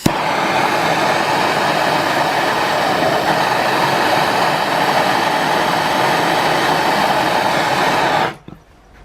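MAP gas torch lit with a sharp click and burning steadily with a loud, even rush while heating a swaged copper pipe joint for brazing, then shut off suddenly about eight seconds in.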